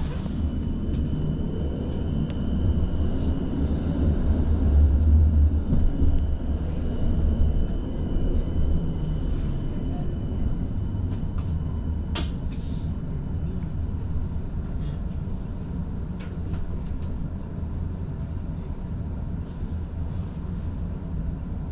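Tram running on its rails, heard from inside the car: a steady low rumble that swells about four to six seconds in. A thin, steady high whine sounds over the first half, and there is one sharp click about twelve seconds in.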